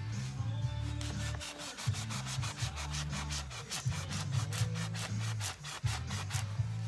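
Quick, even rubbing strokes, about four or five a second, like hand sanding or scraping.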